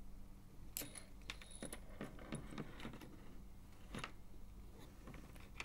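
Faint, scattered small clicks and taps of tiny metal and plastic parts being handled and prodded with a small hand tool as a vape mod's 510 connector assembly is taken apart; the sharpest click comes about four seconds in.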